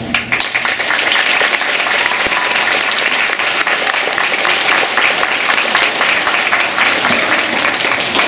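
Audience of schoolchildren applauding, a dense, steady clapping that starts suddenly as the speech before it ends.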